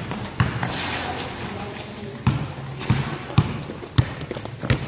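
A basketball bouncing on the court, about six thuds at uneven spacing, several of them about half a second apart as in a dribble.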